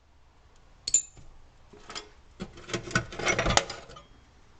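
Small loose metal hardware clinking and rattling as it is picked through by hand: one sharp clink about a second in, then a run of clattering and jingling from about two to four seconds in.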